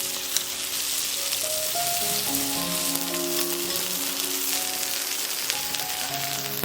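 Food sizzling on a shichirin charcoal grill: a steady hiss with small crackles and pops, under background music with slow, held notes.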